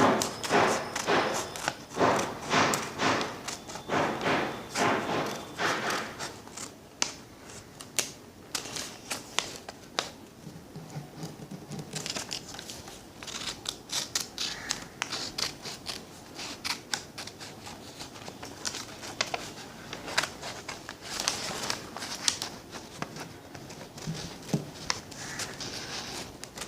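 Scissors cutting a shape out of a sheet of paper: a quick run of strokes about twice a second for the first six seconds, then quieter, scattered snips and paper rustle.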